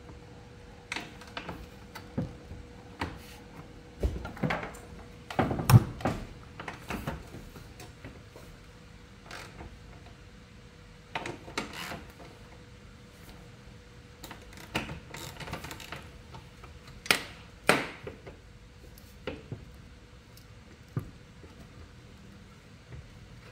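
Irregular clicks and knocks of hand tools on metal during work on a scooter's exhaust fittings, with a few louder knocks about six seconds in and again near seventeen seconds, over a faint steady hum.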